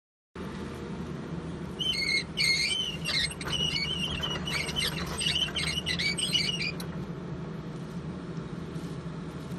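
Volvo EC210BLR long-reach excavator's diesel engine running with a steady low hum. From about two seconds in until about seven seconds, irregular high-pitched chirping squeals ride over it and are the loudest sound.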